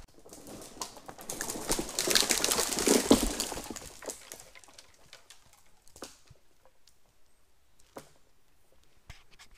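Rustling and crunching of footsteps moving through forest undergrowth and dry twigs, loudest in the first four seconds, then fading to a few scattered clicks.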